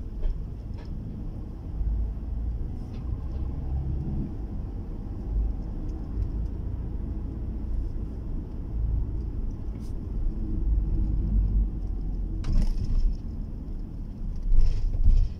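Steady low rumble of tyres and engine heard from inside a moving car's cabin.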